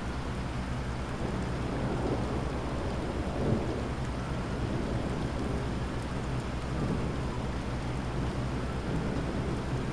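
Heavy rain falling steadily with thunder rumbling low underneath, swelling briefly about three and a half seconds in.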